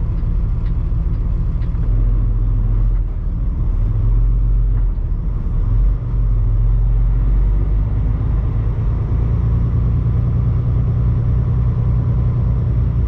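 Semi-truck's diesel engine running with a low, steady drone, heard from inside the cab as the truck rolls slowly. It grows a little louder about two seconds in.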